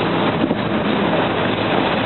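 Norfolk Southern freight train passing close by: a steady, loud rolling noise, mixed with wind on the microphone.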